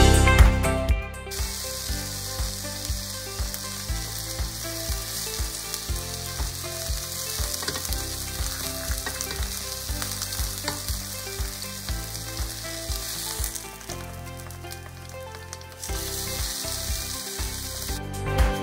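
Mushrooms, cherry tomatoes and bread sizzling in a frying pan, a steady hiss with frequent small pops, as a spoon moves the food about.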